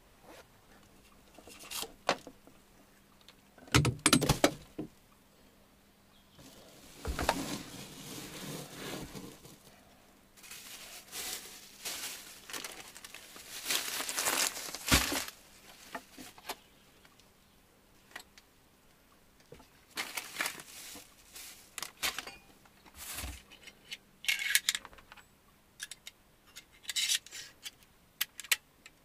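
Irregular handling noises: rustling and crinkling in stretches, with scattered light clicks, clinks and knocks.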